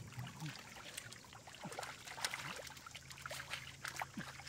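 Shallow water trickling and splashing, with many small irregular splashes and drips.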